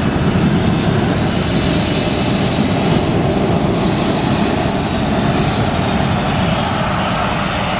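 Panavia Tornado's twin RB199 turbofan jet engines running, a loud steady rumble with a high whine above it.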